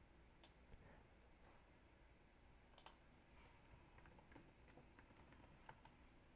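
Faint computer keyboard keystrokes as a password is typed at a sudo prompt and entered: a couple of isolated key clicks, then a quicker run of about eight between four and six seconds in, over near silence.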